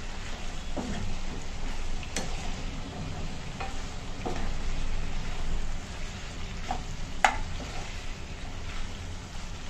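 Chicken sizzling in a pan on the stove while a spoon stirs it, with scattered scrapes and clicks of the spoon against the pan and one sharper clink about seven seconds in.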